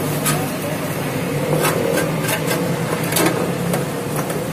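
Sheet-metal blower of a mini rice mill being fitted into its frame and duct by hand: scattered knocks and scraping of metal parts against each other, a few separate clicks. A steady low hum runs underneath.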